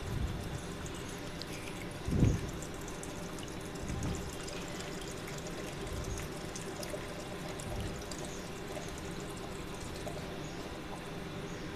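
Milk poured in a steady stream into a plastic blender jar over watermelon pieces and sugar, splashing as the jar fills. A single low thump about two seconds in.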